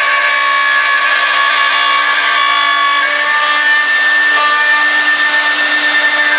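CNC router running steadily. The spindle makes a constant whine of several steady tones over a cutting hiss.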